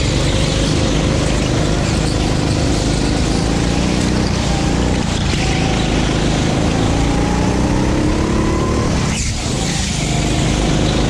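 Rental go-kart's 9 hp engine running at racing speed, its pitch climbing over several seconds and dropping briefly about 5 and 9 seconds in as the throttle is lifted.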